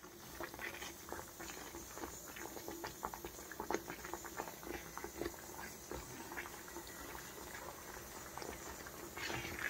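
Semolina halwa bubbling and popping in a frying pan as a spatula stirs through it: a faint, irregular patter of many small pops.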